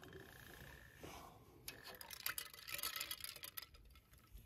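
Faint scattered clicks and light taps of tableware being handled on a camp table, busiest about two to three and a half seconds in, as a stainless steel cup of iced drink is picked up.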